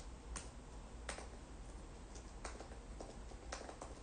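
Typing on a computer keyboard: about ten faint, irregularly spaced keystroke clicks.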